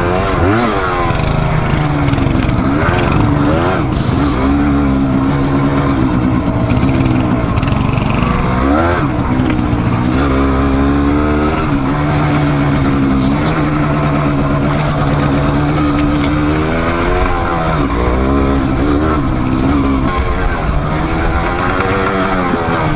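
Dual-sport motorcycle engine riding off-road, its pitch rising and falling again and again as the throttle is opened and closed.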